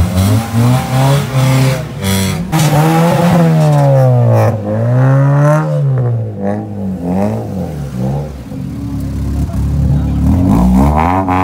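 Modified car's engine being revved hard and repeatedly: a few quick blips at first, then several long climbs and falls in pitch, and another climb near the end.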